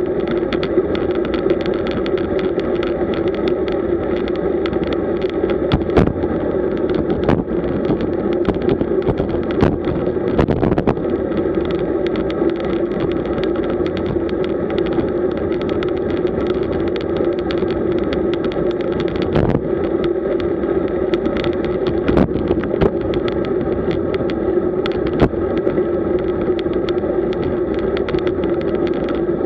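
Road bike rolling fast over rough asphalt at about 36 km/h: a steady hum of tyre and road noise, with scattered sharp knocks as the bike and camera mount jolt over bumps.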